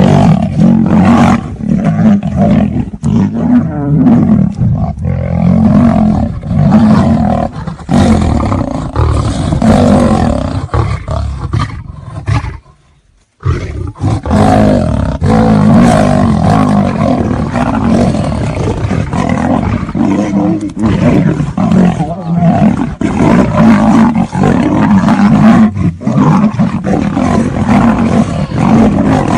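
A lion and a tiger fighting, with loud, almost unbroken roaring and growling. The sound cuts out for about a second midway, then resumes.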